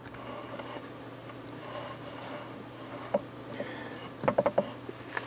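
Faint handling noise: a few small clicks and light rustles, as of a small plastic device or paper being handled, over a steady low room hum.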